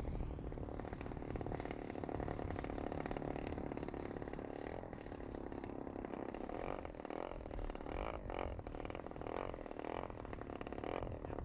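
Engine of a large-scale radio-controlled model warbird running at low throttle as it lands and taxis. In the second half the engine rises and falls in a series of short surges.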